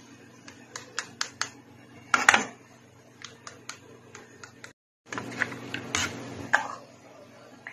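Metal spoon clinking and scraping against a steel bowl as thick mango kulfi mixture is spooned into small dessert cups: scattered light clinks, with a louder clatter about two seconds in.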